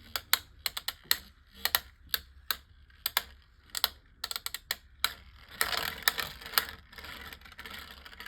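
Two Beyblade Micros spinning tops clashing in their stadium: irregular sharp clicks and clacks, with a denser rattling stretch about five and a half seconds in.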